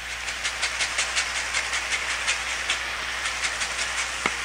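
Lemon rind being grated over a pan of frying minced chicken filling: quick rasping strokes, about five a second, over a steady sizzle. Two light knocks near the end.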